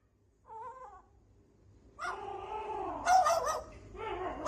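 A cat meowing: one short meow about half a second in, then longer, drawn-out meows from about two seconds on.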